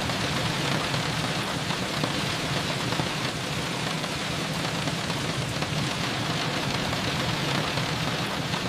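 Steady rain falling, an even hiss with a low rumble beneath.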